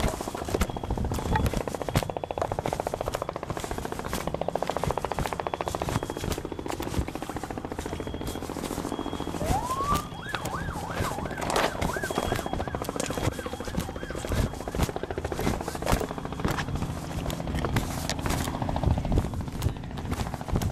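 Handling noise from a handheld camera carried loosely: dense, irregular knocks, clicks and rubbing as it swings against clothing. A siren briefly wails and warbles about halfway through.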